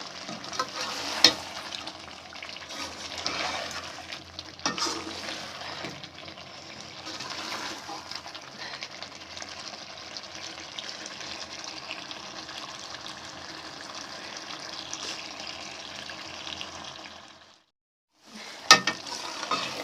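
Chicken karahi masala sizzling as it is fried and stirred in a karahi, with sharp knocks of the spoon against the pan about a second in and again near five seconds. The sizzle marks the bhuna stage, the water cooked off and the oil separating from the masala. The sound drops out briefly near the end, then a loud knock.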